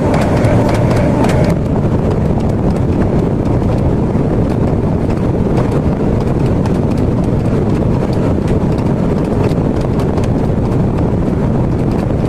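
Waste-oil forge burner running with a steady, fluttering low rumble. A higher hum over it cuts off about a second and a half in.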